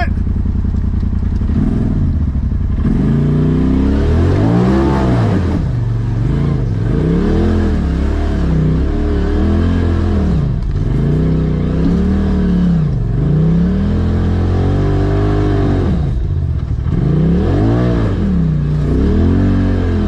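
Side-by-side UTV engine running steadily for the first couple of seconds, then revving up and down over and over, its pitch rising and falling every second or two as the throttle is worked while crawling over rough trail.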